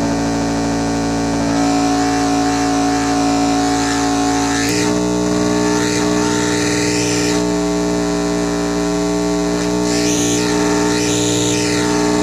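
Dirty Drone [anarchy edition] drone/noise synth, its three interacting triangle-wave oscillators holding a steady droning chord of several tones. About four and a half seconds in, the pitches jump to a new chord. Twice, sweeping tones rise and fall above it.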